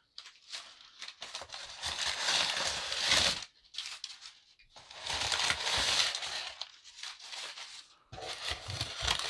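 Crumpled brown packing paper being pulled out of a cardboard shipping carton, crinkling and rustling in several spells.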